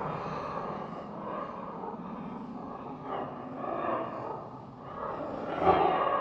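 Designed Demogorgon monster sound effect: a creature's low, rasping growls and breaths that run on continuously. The sound eases off in the middle and swells louder again near the end.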